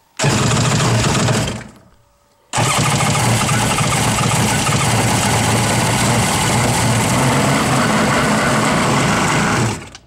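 1997 Yamaha WaveRunner's three-cylinder two-stroke engine starting and running loudly for about a second and a half, then stopping. It starts again about two and a half seconds in, runs steadily and cuts off suddenly near the end.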